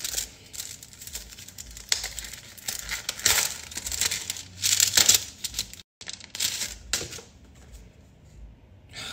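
A small paper card envelope being opened and handled: irregular rustling and tearing of paper, loudest a little past three seconds and again about five seconds in.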